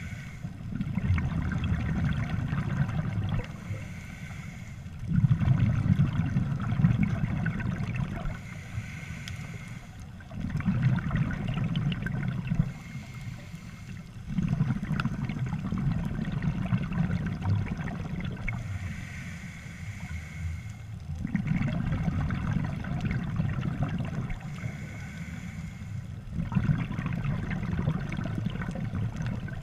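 Scuba diver breathing through a regulator underwater: a quieter hissing inhale with a thin steady tone, then a loud gurgling rumble of exhaled bubbles, repeating about every five seconds, six breaths in all.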